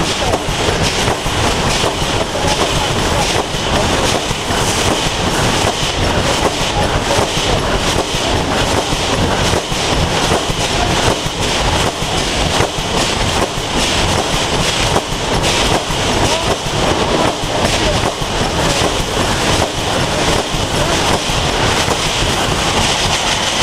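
Wire mesh welding machine running in production: a continuous, loud mechanical clatter of rapid knocks.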